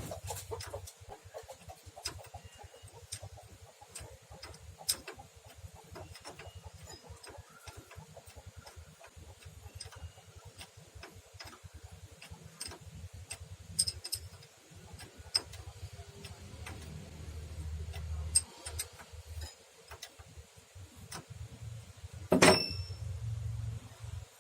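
Irregular metallic clicks and light taps from hand tools and parts being handled, with one louder knock near the end.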